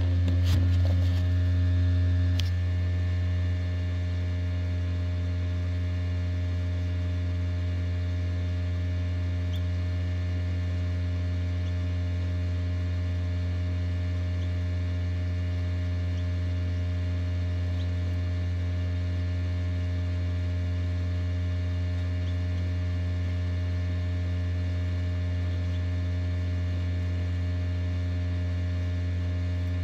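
Steady electrical hum of a running egg incubator, low and unchanging, with a stack of fixed higher tones above it. A few faint clicks in the first couple of seconds.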